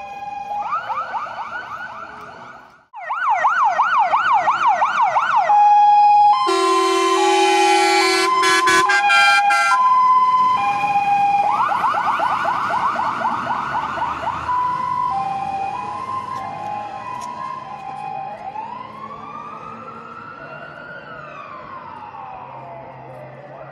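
Fire engine's electronic siren switching between modes: a two-tone hi-lo, bursts of fast yelp, and a horn blast about six seconds in lasting a few seconds. Near the end it changes to a slow rising and falling wail, getting steadily fainter as the truck drives away.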